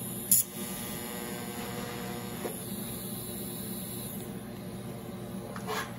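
TIG welding autogenous tack welds on stainless steel: a steady electrical hum and hiss, with a sharp click about a third of a second in and a brief crackle near the end.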